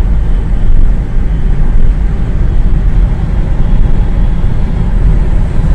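Cabin noise of a Nissan Serena minivan cruising at about 65 km/h: a steady, loud low rumble of tyres and engine.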